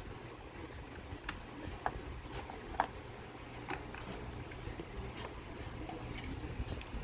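Slime being squeezed and stretched by hand, giving a handful of small, irregular sticky clicks and pops over a low steady hum.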